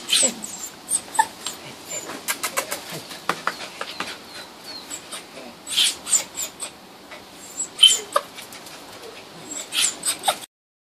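Small white long-haired dog crying out in several short, high-pitched whimpers and yelps as she is handled, about six and eight seconds in and again near the end, with a run of light clicks in between; crying when touched there is her sign of pain. The sound cuts off just before the end.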